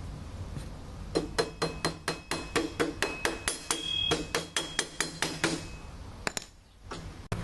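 A regular run of sharp metallic taps, about four a second, ringing slightly, as parts of a steel garage door opener rail are knocked or fastened together. The tapping stops and is followed by a couple of single clicks near the end.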